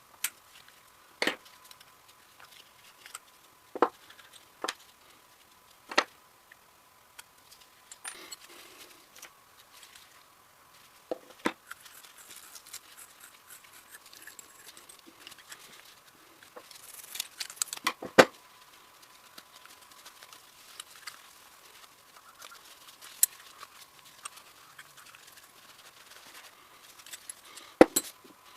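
Small steel parts of a Ramset 122MD powder-actuated tool clicking and clinking as they are handled, in scattered separate knocks, the loudest about two-thirds of the way through.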